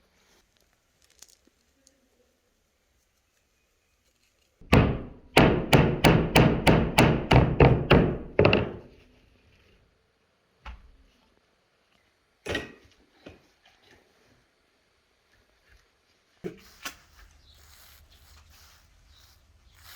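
A quick run of about a dozen chopping blows on wood, roughly three a second, followed by a few single knocks.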